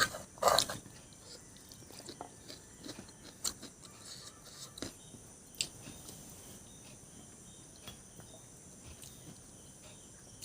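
Close-up eating sounds: irregular wet mouth clicks and smacks while chewing, loudest in the first second, then sparser and softer.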